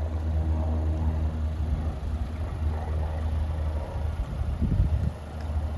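A 2023 Chevrolet Equinox's 1.5-litre turbocharged four-cylinder idling steadily, with gusts of wind rumbling on the microphone near the end.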